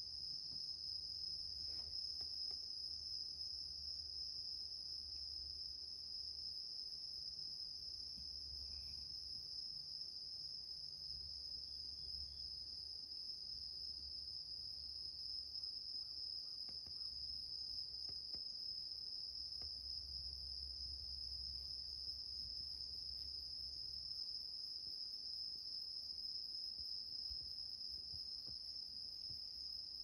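Suzumushi (Japanese bell crickets) singing: a continuous high, ringing trill, with a faint low hum beneath.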